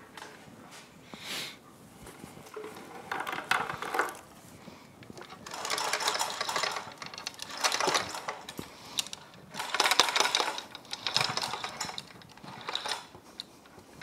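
Manual chain hoist being hand-pulled to lower an outboard powerhead: the steel chain rattles and clicks through the hoist in several spells of a second or so.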